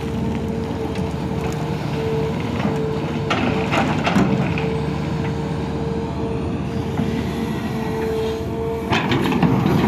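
Sumitomo SH350LC excavator running under load: a diesel rumble with a steady high whine, and bursts of rock scraping and crunching about three to four seconds in and again near the end.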